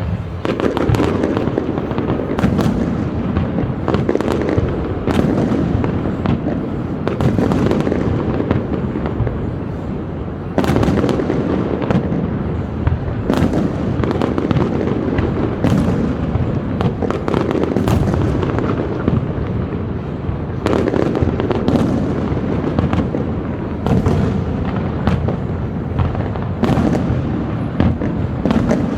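Aerial fireworks display: a continuous barrage of shell bursts and booms, with sharp bangs every second or so over a steady rumbling, crackling din.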